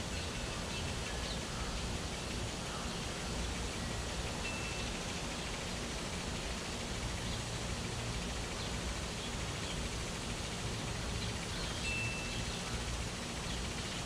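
Steady hiss of lawn sprinklers spraying, with scattered short, high bird chirps and a few brief whistled notes.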